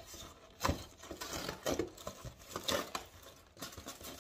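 A cardboard box being handled and opened: several short knocks, about a second apart, over rustling and scraping of cardboard.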